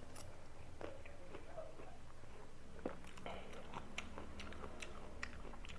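Close-up chewing of rujak of raw mango and crunchy jicama, irregular small crunches and wet clicks.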